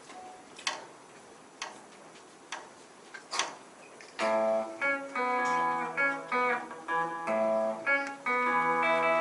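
Four faint, evenly spaced clicks about a second apart, a count-in, then a little under halfway through electric guitar comes in with a picked run of ringing notes, the opening of a song intro.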